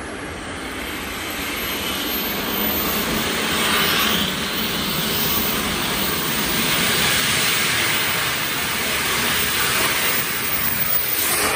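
Home-built gas turbine engine, made from a truck turbocharger, running on a jet-powered motorcycle as it rides up: a broad jet roar with a thin high-pitched turbine whine, growing louder. Near the end it drops in pitch as the bike passes.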